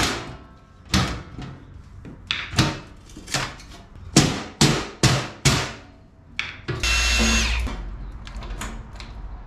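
A mallet strikes an aluminum diamond-plate sheet about ten times, irregularly spaced, bending it along a scored line into a corner. About seven seconds in, a Ryobi cordless drill runs for under a second.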